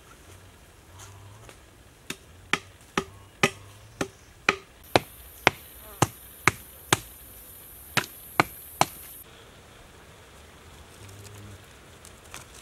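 About fifteen sharp wooden strikes on upright stakes, roughly two a second, with a short gap before the last three. A high steady hiss runs under the middle strikes.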